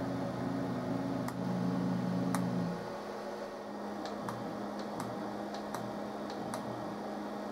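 Stepper motors of a retrofitted Emco F1 CNC mill humming as the table is jogged for a dial-indicator check, with a louder stretch of several low tones in the first few seconds. After that, about ten sharp irregular clicks, many paired with a brief low buzz, as the axis is stepped in small increments.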